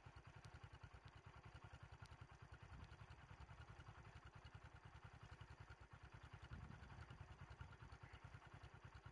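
Faint vehicle engine idling, a rapid, even low pulse.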